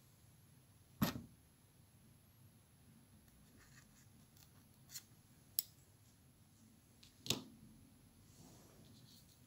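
Fly-tying tools being handled at the vise: a feather and a pair of fine scissors, giving four sharp clicks. The two loudest carry a dull knock, about a second in and again about seven seconds in, with two thin clicks in quick succession between them.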